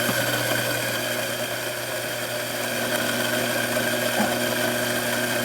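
Small electric coffee grinder running steadily, its motor keeping a constant pitch as it grinds coffee beans.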